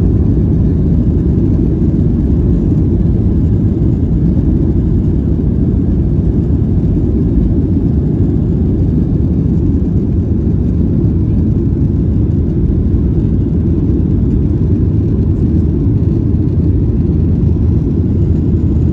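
Boeing 737 cabin noise during the takeoff roll and climb-out: the jet engines at takeoff power and the airframe give a loud, steady, deep rumble that holds unchanged through liftoff.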